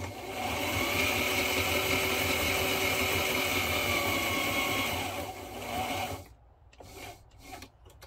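Sewing machine running steadily as it stitches around the edge of a textured-vinyl piece, stopping about six seconds in. A few short clicks and knocks follow near the end.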